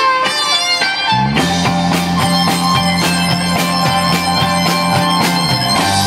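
Live rock band playing through amplifiers: electric guitars with bass and drums. A picked guitar line opens, and about a second in the bass and drums come in with a steady beat.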